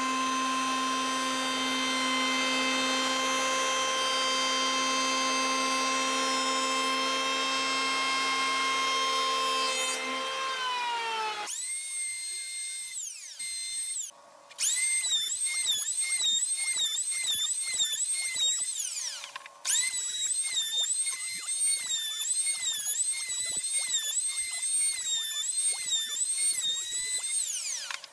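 Wen 6534 electric hand planer's 8-amp motor running with a steady whine, then winding down about ten seconds in. After a short pause it runs again, its pitch dipping and recovering roughly once a second, as under the load of cutting wood.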